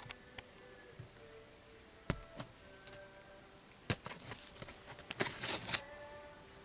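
A few light clicks, then about four seconds in a couple of seconds of crackling, rustling handling noise, like hands working at duct wrapping.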